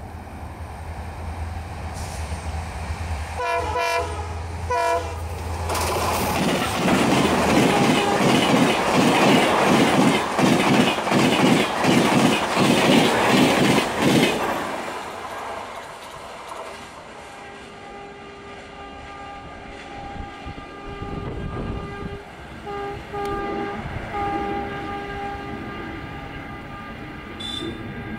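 Indian Railways Shatabdi Express hauled by a WAP-4 electric locomotive, sounding two short horn blasts as it approaches. Its coaches then pass close at full speed with a rapid, gunfire-like clatter of wheels over rail joints, about two or three knocks a second, before the sound fades as the train draws away.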